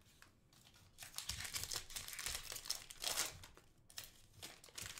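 Plastic wrapper of a Panini football card retail pack being torn open and crinkled. The crinkling starts about a second in and runs for a couple of seconds, then comes back in a few short crinkles near the end.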